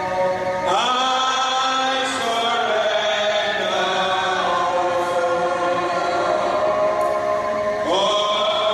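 A man singing a slow worship song of surrender into a microphone, in long held notes, sliding up into a new phrase about a second in and again near the end.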